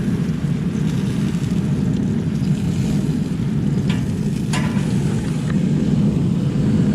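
Steady rain noise: an even, low rumble, with a few light clicks about four and five seconds in.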